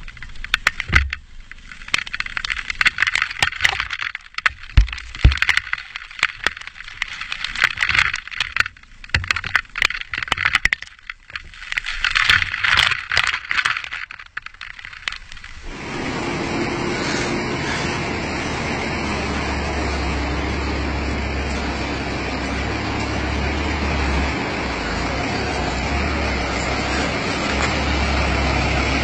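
Falling water from a waterfall spattering and rushing onto a helmet-mounted camera as it passes underneath: gusty hiss with many sharp taps of drops. About sixteen seconds in it cuts abruptly to a steady rushing vehicle noise with a low rumble.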